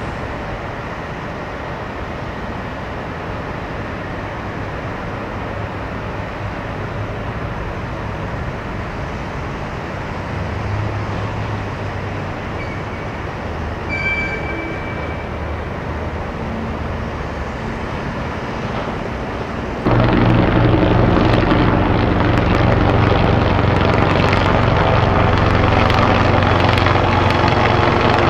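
Steady background rumble of city vehicles, with a brief high tone in the middle. About two-thirds of the way in it cuts suddenly to much louder, steady helicopter rotor and engine noise.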